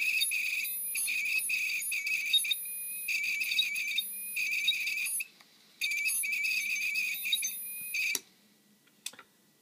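Opened Seagate 2.5-inch laptop hard drive running with its platter spinning and the read head scraping along the disk: a high-pitched, warbling squeal in repeated stretches, with a short break about five seconds in. The drive's heads are believed already damaged. The squeal cuts off with a click just after eight seconds.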